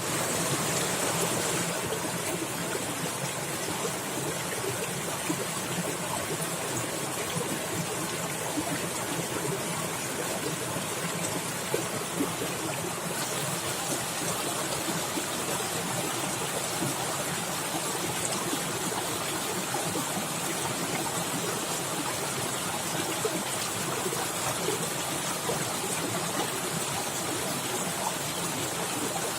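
A fast forest stream splashing and babbling over rocks, a steady rush of water with small splashes.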